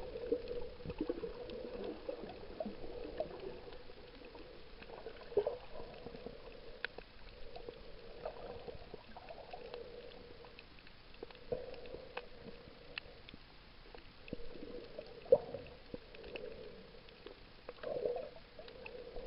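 Underwater reef ambience as heard by a submerged camera: a faint, muffled wash of water movement that swells and fades, with scattered sharp clicks.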